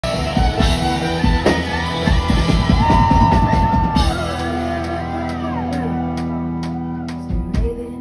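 Live rock band playing, with a woman singing over drums and electric guitar. The drums stop about halfway and the instruments hold and ring on, with a brief drum hit again near the end.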